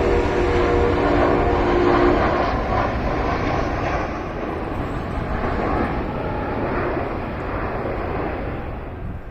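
Aeroplane flying over: a steady rushing engine noise with a few humming tones in the first two seconds, loudest about two seconds in and then slowly fading away.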